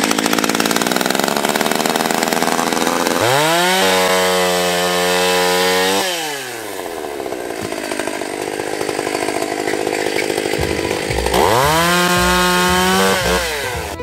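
Stihl 020 two-stroke chainsaw running just after being started. It is revved up to a high steady pitch twice, about three seconds in and again near the end, and drops back to a lower, uneven idle in between.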